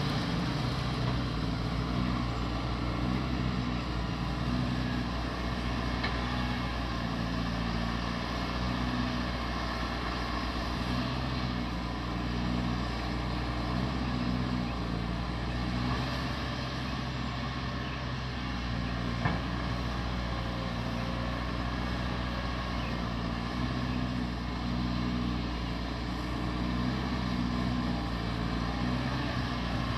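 Caterpillar 320D hydraulic excavator's diesel engine running steadily while the machine works, its pitch shifting slightly up and down. A single short knock sounds about two-thirds of the way through.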